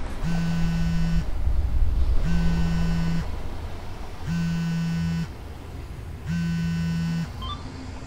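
A mobile phone buzzing four times, each buzz about a second long with a second's pause between, as for an incoming call.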